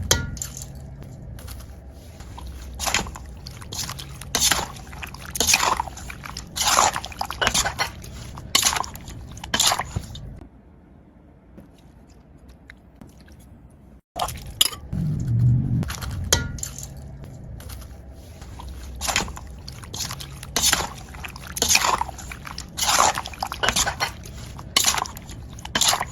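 Wet crunching and squishing of a fresh shrimp and sliced lemongrass salad, in short irregular strokes about once a second, pausing for a few seconds near the middle.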